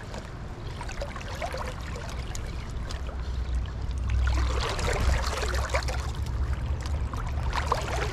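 Creek water running and splashing close by, with a steady low rumble underneath; the splashing swells about halfway through and again near the end.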